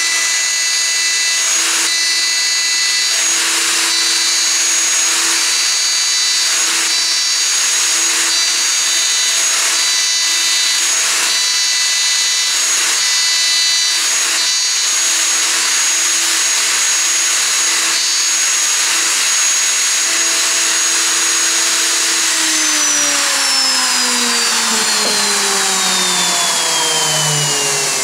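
Festool router running at a steady high whine, mounted upside down under a plywood circle-cutting jig, with its bit cutting into the edge of a plywood disc as the disc is turned on a pivot bolt; the cutting noise comes in regular pulses. About 22 seconds in the router is switched off and its whine falls steadily in pitch as it spins down.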